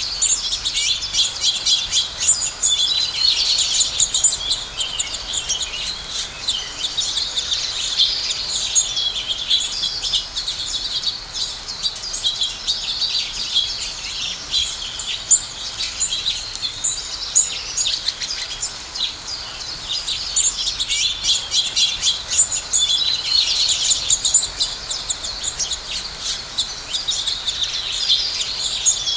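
A group of house sparrows chirping, many short overlapping chirps without a break, busier a couple of seconds in and again about three-quarters of the way through.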